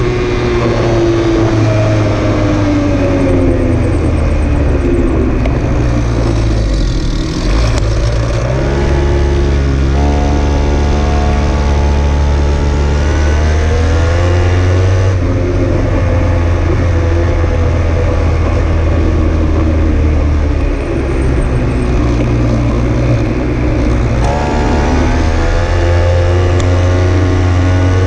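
A vehicle engine running close to the microphone while under way. Its pitch falls and rises as the revs change: it drops at the start, climbs about a third of the way in and holds, eases back, then climbs again near the end.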